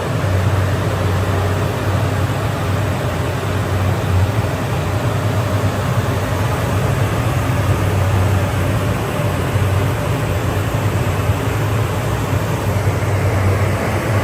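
Vertical glass washing machine running: a steady low machine hum under an even hiss.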